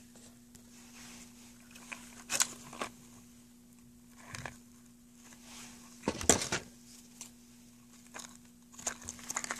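Soft rustling and small clicks of ribbon and a paper-wrapped chocolate box being handled as the ribbon is wrapped on, the loudest rustle about six seconds in, then a quick run of small clicks near the end as scissors cut the ribbon. A steady low hum sits underneath.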